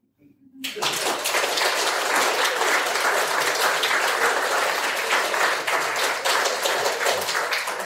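Audience applauding, starting just under a second in and holding steady.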